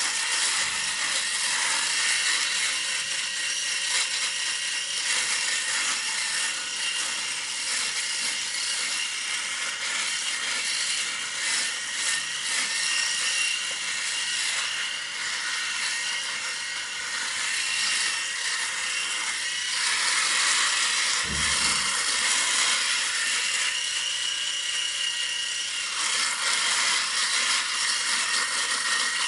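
Electric shaver running while shaving, a steady high buzzing hiss whose texture shifts now and then as it moves over the skin. A brief low bump about two-thirds of the way through.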